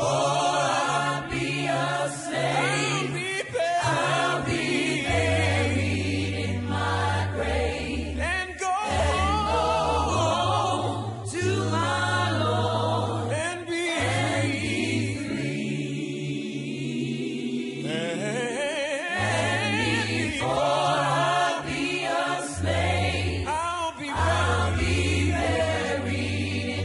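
Background music: a choir singing, with low held bass notes underneath.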